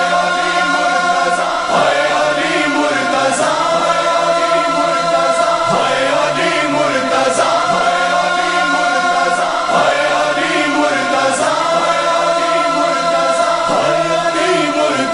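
A chorus of voices chanting a nauha refrain in long, held notes, with a short beat about every two seconds.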